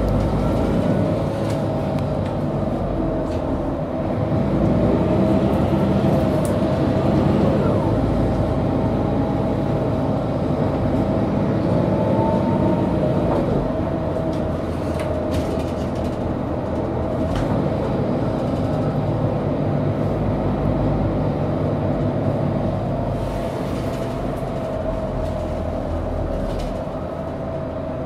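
Mercedes-Benz O530G Citaro Facelift articulated diesel bus heard from inside while driving: a steady engine drone with a high whine that wavers slightly up and down.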